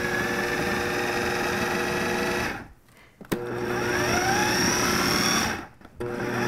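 KitchenAid food processor motor run in pulses to chop quartered fresh tomatoes into chunks rather than a purée. It runs, stops briefly about two and a half seconds in and again near the end, and each time it starts again its whine rises as the blade spins up.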